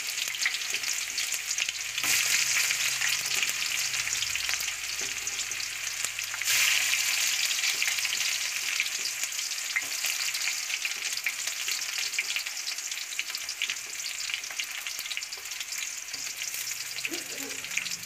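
Sliced red onions frying in hot oil in an aluminium kadai: a steady sizzling hiss dotted with small crackles, swelling about two seconds in and again around six and a half seconds.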